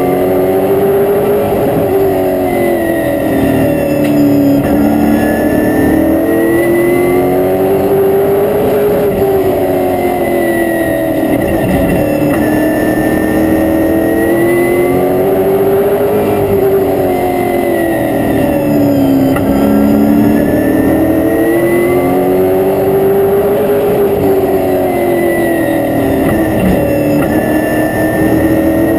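Race car's V8 engine heard from inside the cockpit. The engine pitch climbs on each straightaway and drops off into each turn, repeating about every seven seconds as the car circles the oval, with a high whine that rises and falls along with it.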